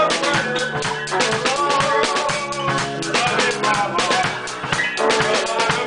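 Live band music with a drum kit, drum and cymbal hits throughout over sustained pitched notes from other instruments.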